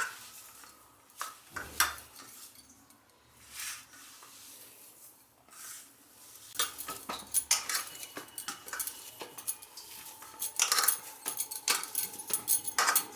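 A spoon clinking and scraping against a bowl while potato kabab dough is mixed with maize flour. The clinks are sparse at first and come thick and fast in the second half, with a faint ringing from the bowl.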